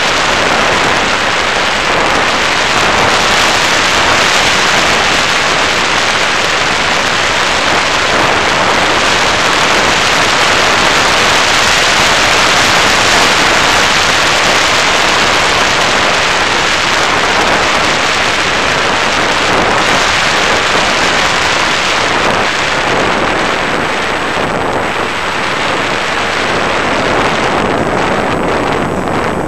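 Loud, steady rush of airflow over the onboard camera's microphone on a Raptor FPV model plane in flight, mixed with the noise of its motor and propeller. A faint thin high whine runs through it, and the rush thins out a little in the last few seconds.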